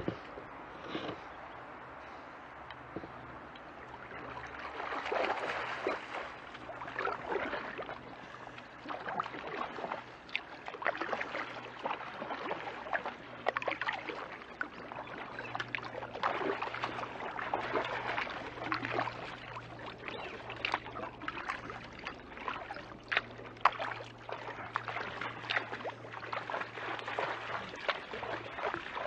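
Kayak paddle dipping into the creek in an irregular run of strokes, water splashing and dripping; quiet at first, busier from about four seconds in.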